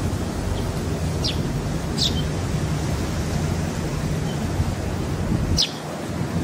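Wind buffeting the microphone in a steady low rumble that drops away suddenly about five and a half seconds in. A few short, high, falling chirps sound over it.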